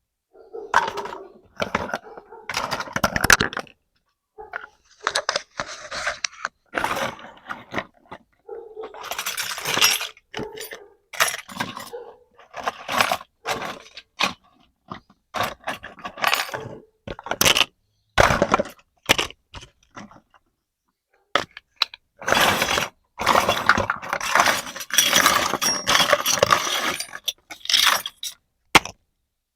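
Small plastic toy kitchen pieces clicking, clinking and knocking together as they are handled and unpacked, irregularly, with longer stretches of rustling.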